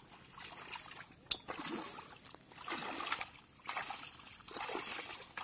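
Feet wading through shallow water: irregular splashing and sloshing as each leg pushes through. A single sharp click cuts in about a second in.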